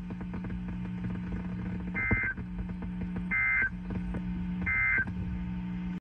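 Emergency Alert System end-of-message data bursts over a car radio: three short, buzzy two-tone bursts about a second apart, marking the end of the warning broadcast. A low steady hum runs underneath.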